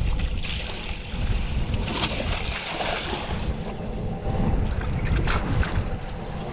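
Wind buffeting the microphone aboard a small boat at sea, with water splashing against the hull and a faint steady hum underneath.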